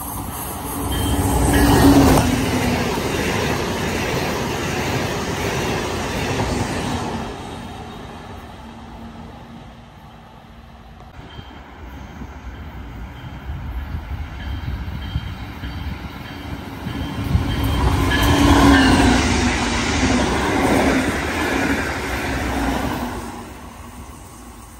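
Two trains passing at speed one after the other, each rising to a loud rush of wheels on rail and then fading. The second pass is a Brightline trainset, with a grade-crossing bell ringing faintly as it approaches.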